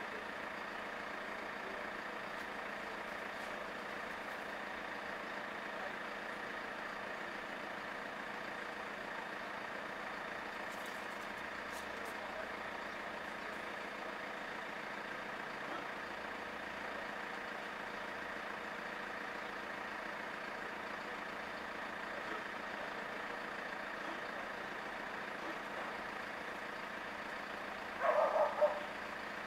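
Steady mechanical hum, like an engine idling, unchanging throughout. Near the end a short, louder sound breaks in for under a second.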